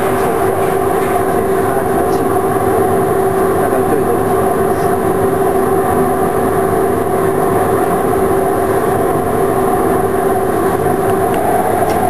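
Steady mechanical drone of a motor running at constant speed, with a constant hum over a broad rushing noise and no change in pitch or level.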